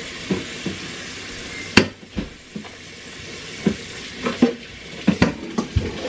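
Kitchen faucet running into the sink during hand dishwashing, with clinks and knocks of dishes and a metal pitcher against the sink; the sharpest clink comes about two seconds in.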